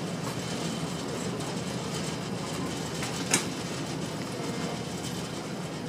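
Steady low rumble of a ferry's engines and hull running through the water, with one sharp click about three seconds in.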